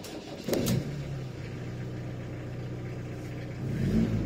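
Iveco Daily 35-8 van's diesel engine idling steadily, just after starting, through a freshly fabricated custom exhaust, heard from inside the cab. The revs rise briefly about half a second in, and the engine swells louder near the end.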